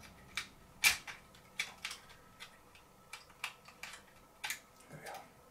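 Scattered light metallic clicks and taps as a small sheet-metal firebox tray is worked into the brass chassis of a Birmingham Dribbler toy steam locomotive. The sharpest click comes about a second in.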